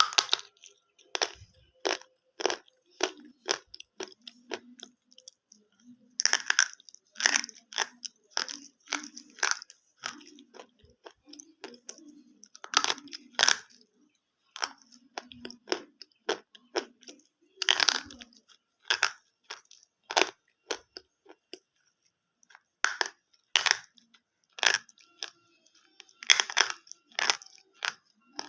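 A person biting into and chewing brittle pieces of baked edible clay, each bite a sharp crunch as the material breaks off in layers. The crunches come irregularly throughout, some in quick clusters, with quieter chewing between.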